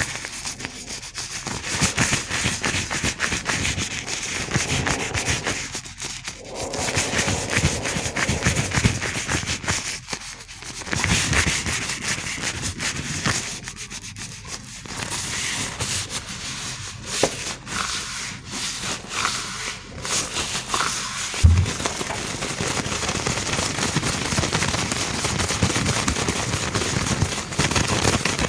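Gloved hands rubbing and crinkling, a dense crackling full of small sharp clicks that pauses briefly a few times.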